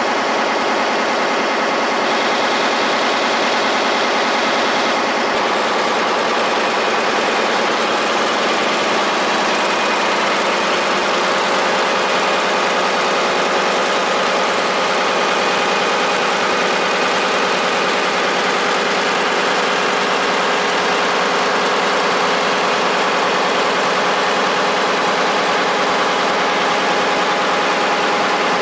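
Heidelberg Mercury web offset newspaper press running in production: a loud, steady mechanical din from the printing towers and folder, with several steady hums and whines held through it.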